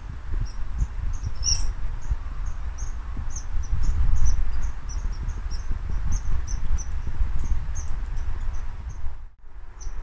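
Squirrel calling from the trees: a steady series of short, high chirps, about three a second, over a low rumble of wind or handling on the microphone. The sound drops out briefly near the end.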